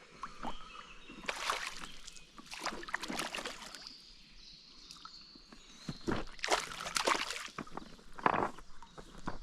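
Water splashing in a few irregular bursts: a hooked pike thrashing at the surface.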